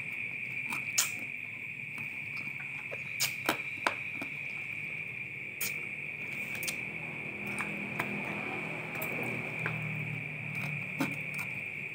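Crickets chirring in a steady high tone, with scattered soft clicks from chewing fried bird meat.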